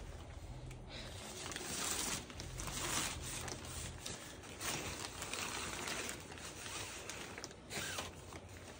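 Shiny synthetic fabric of a children's IKEA pop-up play tent rustling and swishing as it is pulled and spread out by hand: a run of uneven swishes and crinkles.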